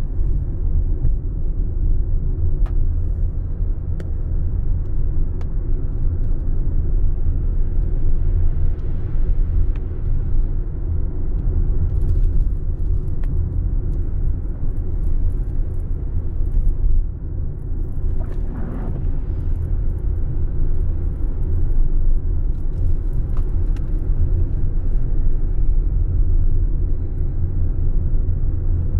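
Steady low rumble of a car driving on a wet road, heard from inside the cabin, with scattered faint ticks.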